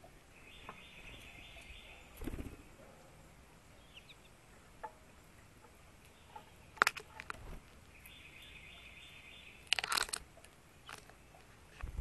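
Birds at backyard feeders close by. Sharp knocks and clatters come as they land, hop and peck on the feeders, loudest about seven and ten seconds in. A dry buzz of about a second and a half is heard twice.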